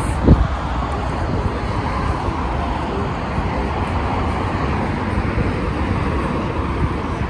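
Steady city traffic noise, an even rushing hum with no distinct events. A single low thump comes just after the start.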